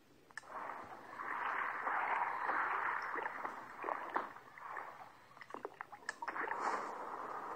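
Underwater bubbling and gurgling from a scuba-diving video's soundtrack, starting about half a second in, with a few sharp clicks in the second half.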